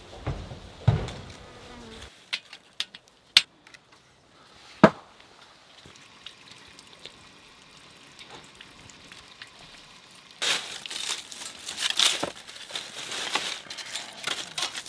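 A fly buzzing and a few sharp clicks in the first seconds, then, after a quiet stretch, dry twigs and leaves crackling and snapping for about four seconds as kindling is laid by hand under a copper-coil water heater.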